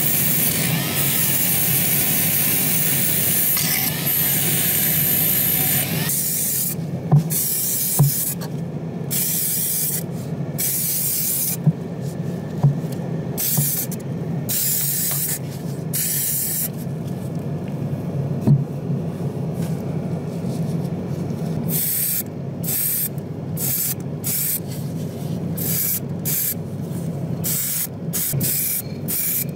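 A small rotary tool with a wire brush scrubbing a diecast metal part for about the first six seconds. Then paint spraying in bursts of hiss, first several longer ones, then many quick short ones near the end, over a steady low hum, with a few sharp clicks.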